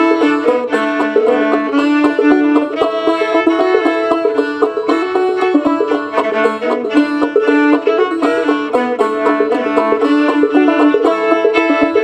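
Homemade clawhammer banjo picking an old-time tune in a quick, even rhythm, with a homemade fiddle holding long notes over it.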